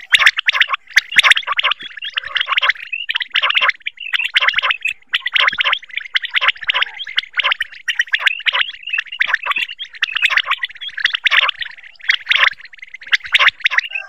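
Common quail (batair) calling: rapid, high chirping notes packed into short clusters that repeat about once a second, one running into the next.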